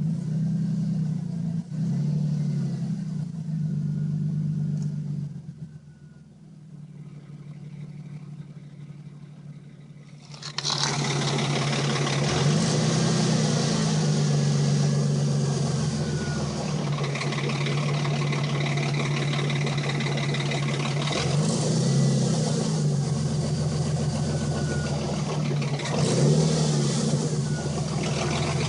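Dodge Intrepid engine running, with a noise the owner puts down to the timing chain. About a third of the way in the engine sound becomes much louder and fuller, and the throttle is briefly blipped three times after that.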